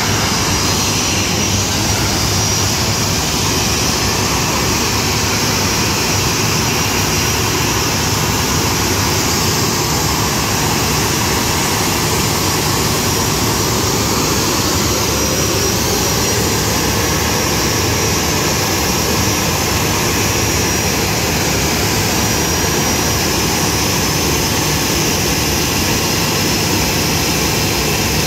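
Boeing 737 jet engines running at taxi power as the airliner rolls in toward the gate: a steady, loud rumble and hiss with a faint thin high whine held throughout.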